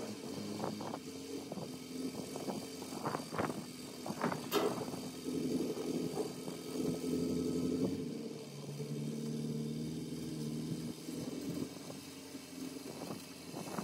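Heavy diesel engine running steadily under a mobile crane lifting a large steel pipe off a trailer, its note dropping lower about eight seconds in. A sharp clank sounds about four and a half seconds in.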